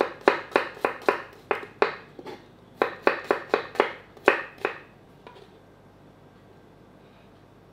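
Chef's knife slicing a shallot on a wooden cutting board: sharp taps about three to four a second, a brief pause a little past two seconds, a second run, then the cutting stops about five seconds in.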